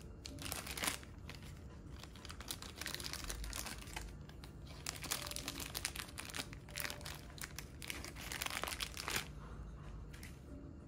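Small clear plastic hardware bag crinkling as it is handled and opened: quick, irregular crackles that come and go, fading out near the end.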